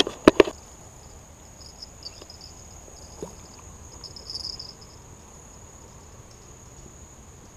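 Insects trilling in a steady high chorus beside still water, with louder bursts of trilling twice. Two or three sharp knocks at the very start.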